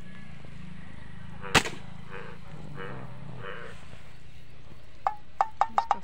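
A slingshot shot: one sharp snap about one and a half seconds in. Near the end comes a quick run of about seven short, sharp clicking notes.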